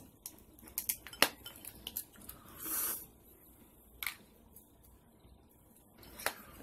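King crab leg shells being cracked and snapped apart by hand: a cluster of sharp cracks and clicks about a second in, then single cracks a few seconds apart, with clinks of shell and cutlery against plates.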